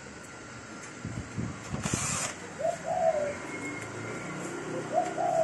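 Pigeons cooing in short arched calls, while the photocopier's sheet-metal cover is handled: a few low knocks about a second in and a short scraping hiss about two seconds in.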